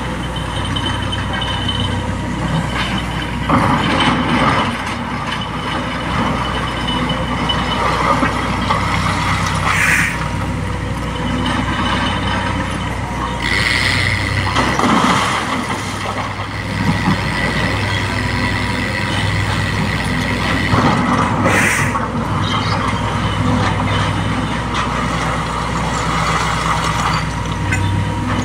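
Sany SY225 hydraulic excavator's diesel engine running steadily under load as it digs and swings, with a steady high whine from about halfway in, and broken rock crashing into the steel body of a dump truck, roughest around four seconds and fifteen seconds in. Two short hisses, about ten seconds in and again about twenty-one seconds in.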